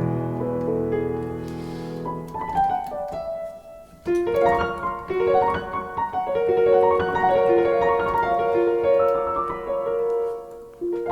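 Sampled Fazioli grand piano (software instrument) played from a MIDI keyboard. Low chords fade out first, a short run of notes follows about two seconds in, and from about four seconds on a melody is played over chords.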